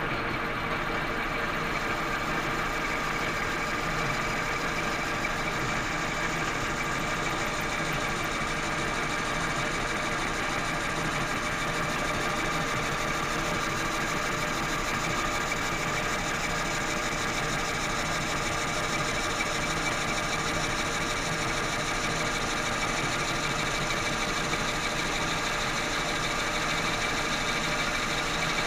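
Monarch lathe running while a ceramic insert takes a facing cut across a quenched, untempered 4140 steel sheave: a steady machining sound with several steady high tones over it, getting brighter about eight seconds in. The cut is into hardened steel that had just ruined a carbide tool.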